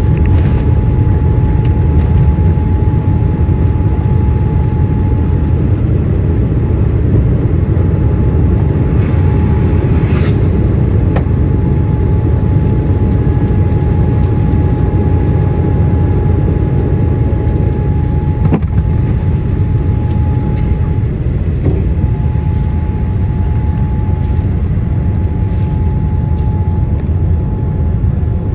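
Cabin sound of a Boeing 787-8's GE GEnx engines at takeoff thrust through liftoff and initial climb: a steady deep roar with a constant whine over it, easing slightly as the aircraft climbs. A brief knock comes about two-thirds of the way through.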